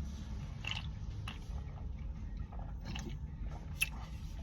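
Small wet mouth clicks and lip smacks of a person tasting a drink, a few scattered sharp ticks with the loudest about four seconds in, over a low steady hum.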